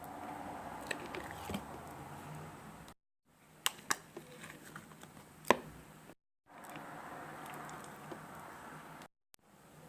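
Slime being squished and worked by hand: a soft, sticky squishing with scattered sharp clicks and pops, broken by brief silent cuts.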